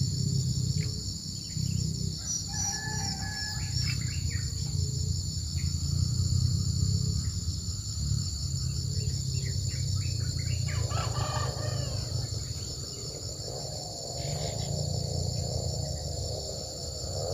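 A steady, high insect chorus with a low rumble beneath it, scattered bird chirps, and a rooster crowing in the second half.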